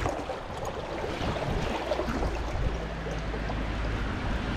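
Steady rush of a flowing river, with a low rumble underneath.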